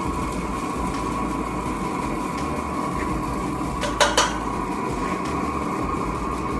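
A steady mechanical whir with a held tone, and two quick metal-on-metal clinks about four seconds in.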